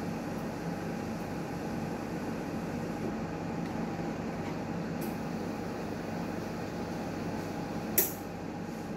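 Newmed Kronos S benchtop steam autoclave running a cycle with a steady mechanical hum, and a single sharp click about eight seconds in.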